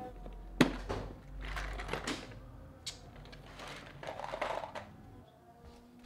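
A plastic toolbox being opened and hand tools inside it shifted about: a couple of sharp clicks and short bouts of rattling and clinking.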